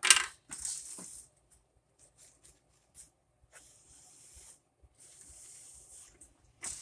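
Toilet paper from a jumbo roll rustling and rubbing against a plastic dispenser as it is fed and seated, in several short stretches of rustle, with a knock at the start and a sharp click near the end.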